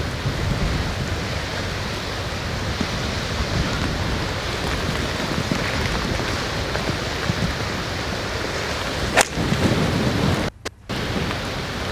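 Strong gale-force wind buffeting the microphone: a steady, rumbling roar of noise. About nine seconds in there is one sharp click, and the sound briefly cuts out near the end.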